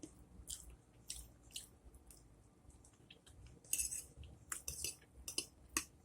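Close-miked chewing of food, with short wet mouth clicks and smacks; the smacks come thicker and louder in the second half.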